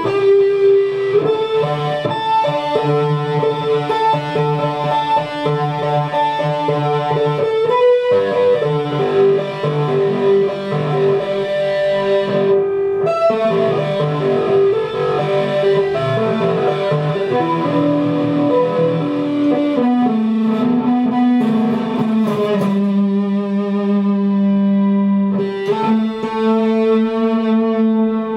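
Guitar music, steady sustained notes moving between chords.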